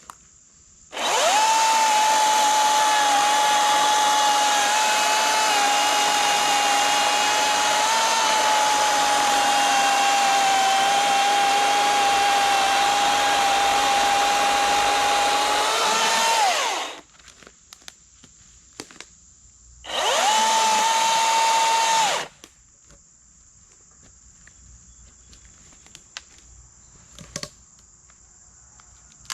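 Milwaukee M18 Fuel 14-inch top-handle battery chainsaw running with a steady high electric whine for about sixteen seconds. It stops, then runs again in a short burst of about two seconds.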